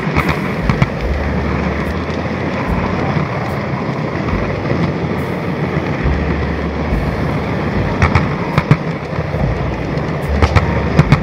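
N-gauge model train running on its track: a steady whirring rumble from the motor and wheels, with sharp clicks from the wheels over the rail joints, in clusters just after the start, about two-thirds through and near the end.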